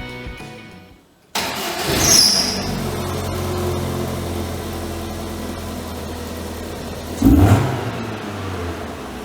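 Lotus Elise engine and exhaust starting up, flaring in revs and settling to a steady idle, with one sharp throttle blip near the end. Music fades out just before it.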